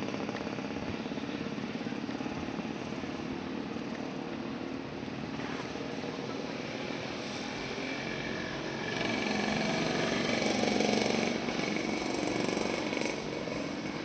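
Street traffic noise: a motor vehicle's engine running, growing louder about two-thirds of the way in and then dropping back near the end.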